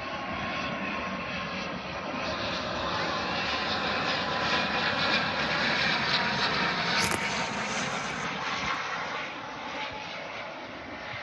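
ATR 72 turboprop airliner's engines and propellers, growing louder to a peak about six seconds in and then fading as it passes, with a steady high whine running through the noise.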